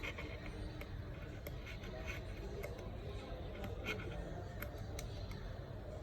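Scattered small sharp clicks and ticks of a precision screwdriver and tweezers on a phone's metal frame as tiny screws are set in place, over a steady low hum.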